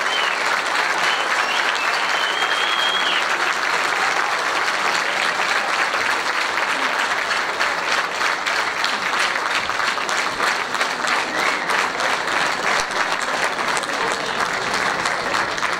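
Applause from a concert audience and the choir on stage, a steady round of many hands clapping, with individual claps standing out more clearly in the second half.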